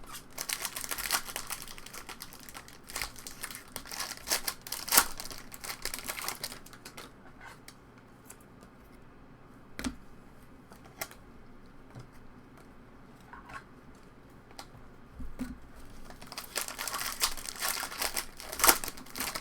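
Trading card pack wrappers being torn open and crinkled, in two stretches of crackling with light clicks and card handling in between.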